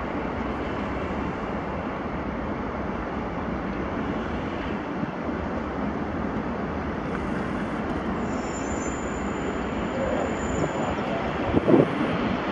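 ATR 72 turboprop's twin engines and propellers running steadily as it taxis, a continuous even rumbling hiss. A thin high whine comes in about eight seconds in, and a couple of short bumps come near the end.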